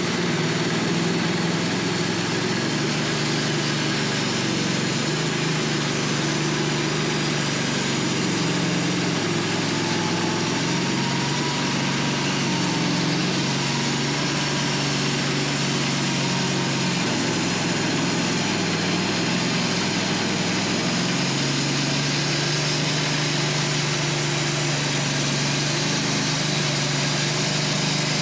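Wood-Mizer LT15 bandsaw sawmill running steadily, its band blade sawing through a hard maple log, with a thin faint whine for a few seconds about a third of the way in.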